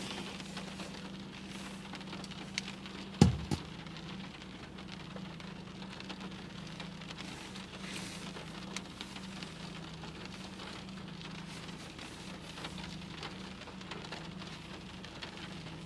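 Rain pattering on the car's roof and windshield, heard from inside the cabin over a steady low hum. A single sharp click about three seconds in.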